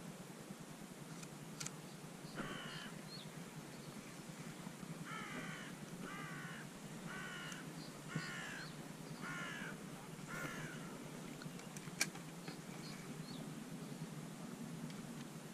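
A crow calling, a run of about seven separate caws spread over several seconds, then a single sharp click.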